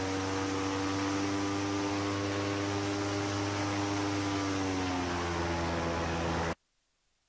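Airboat running at speed, its engine and propeller giving a steady drone. The drone eases slightly lower in pitch about five seconds in, then cuts off suddenly near the end.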